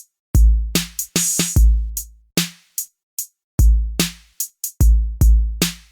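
Outro music: a sparse hip-hop style drum-machine beat of deep booming kick drums and sharp snare and hi-hat hits, with short silences between the hits.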